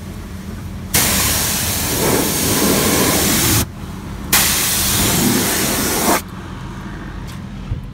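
A car-wash high-pressure spray gun hissing in two long bursts of about two and a half and two seconds, each switched on and off abruptly, over a steady low hum of machinery.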